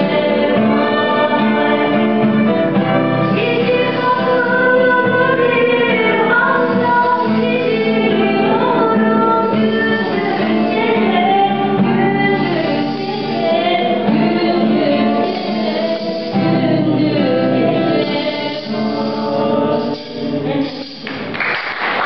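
A Turkish folk song sung to a nylon-string classical guitar, with a violin playing along with the melody.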